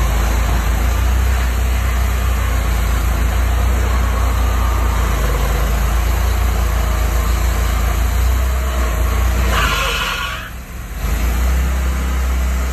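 Gasoline engine of a stump grinder running steadily with a deep hum. It dips briefly about ten seconds in.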